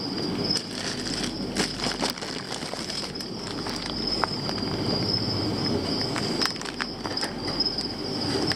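Plastic bags of water crinkling and rustling as they are handled among a plastic box liner, with scattered small crackles and clicks, over a steady high-pitched whine.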